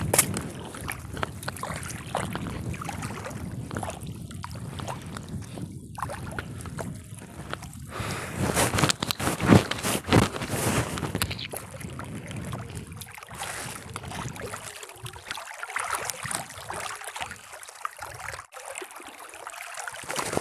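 Water splashing and dripping as a wet fishing net is pulled by hand out of lake water onto a small boat, with wind rumbling on the microphone. The handling and splashing are loudest around the middle.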